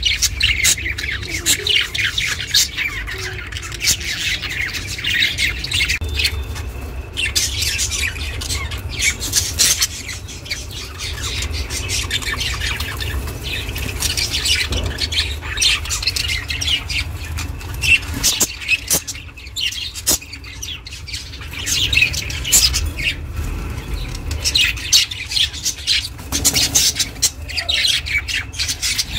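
Pet budgerigar chirping and chattering in a rapid, almost unbroken stream of high squawks and tweets, with a brief lull about two-thirds of the way through. A steady low hum runs underneath.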